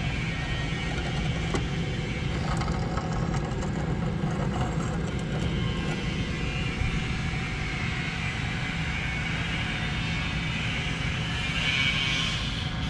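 Acer AGS-1224AHD hydraulic surface grinder running: a steady machine hum with a higher hiss over it, slightly louder near the end.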